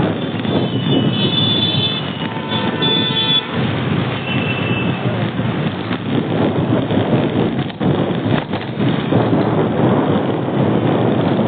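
Steady rumble of road traffic. High-pitched tones sound briefly about a second in and again around four seconds in.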